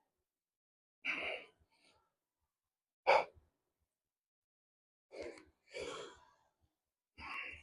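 A man's heavy breathing under exertion: about five separate sighing exhales. The loudest is a short, sharp one about three seconds in.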